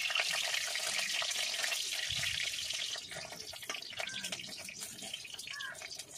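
Cabbage pakoras sizzling and crackling as they deep-fry in hot oil in a kadai, with a metal spatula turning them. The sizzle is loudest for the first three seconds, then eases.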